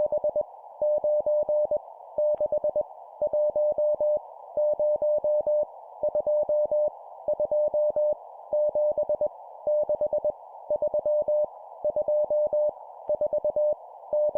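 Morse code at 20 words per minute sending random numbers: a single steady mid-pitched tone keyed on and off in dits and dahs, grouped into characters with short pauses between them, over a steady band of hiss.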